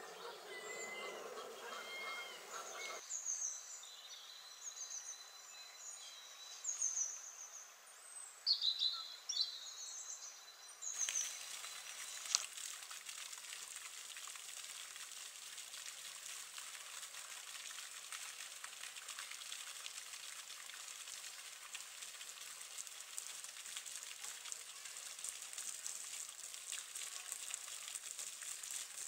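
Outdoor garden ambience. A low buzz runs for the first few seconds. Then small birds sing in short, high chirps and trills for several seconds. From about a third of the way in, a steady crackly hiss takes over for the rest.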